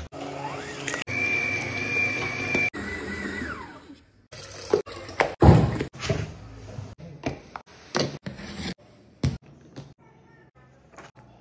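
Stand mixer motor running with a dough hook kneading dough, its whine climbing in pitch as it speeds up, holding, then falling away after about three and a half seconds. Then a run of short knocks and one heavy thump about five and a half seconds in, as dough is worked on a countertop with a plastic bench scraper.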